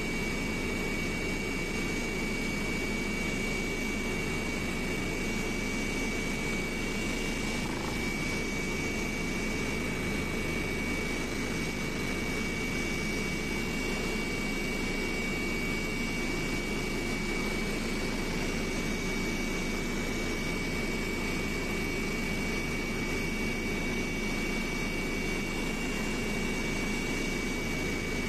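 Steady engine and airflow noise inside an airliner cabin in flight, a low, even rush with a steady high whine running through it.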